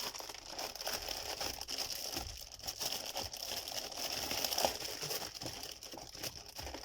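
Parcel packaging crinkling and rustling as it is unwrapped by hand, a continuous crackle of small irregular clicks.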